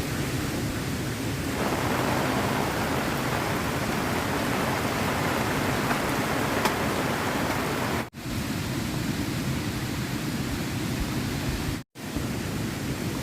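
Heavy rain falling steadily, an even hiss that grows a little fuller about a second and a half in. The sound drops out for an instant twice, near eight and twelve seconds in.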